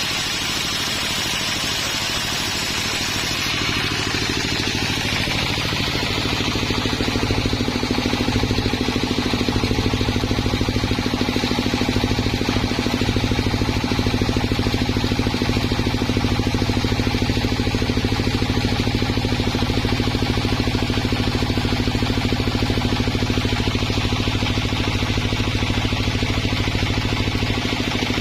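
Engine running steadily; it gets louder about five seconds in and then holds an even hum.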